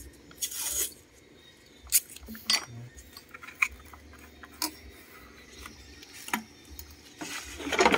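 Scattered light clicks, knocks and clinks, with a short rustle about half a second in and another near the end, as a used brush-cutter engine's plastic starter cover and a paper price tag are handled.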